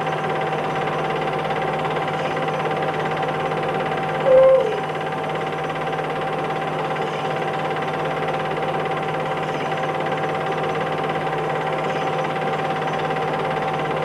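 Steady machine hum and hiss with a constant high whine. About four seconds in, a brief louder squeak drops in pitch.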